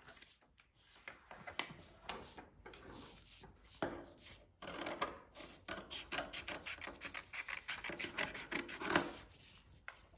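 A sheet of paper being rubbed and creased by hand on a wooden tabletop, then cut along the fold with scissors: a dense run of rasping snips from about four seconds in until near the end.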